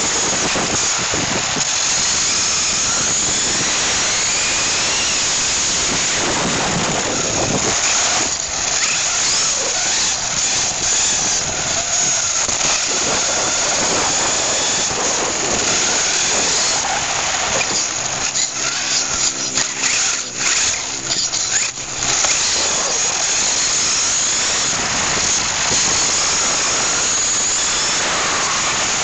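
Onboard sound of a Tamiya Blazing Star electric RC buggy driving on asphalt: a loud, constant rush of tyre and drivetrain noise, with the electric motor's whine rising and falling as the throttle changes. Past the middle the noise turns choppy and broken-up for a few seconds.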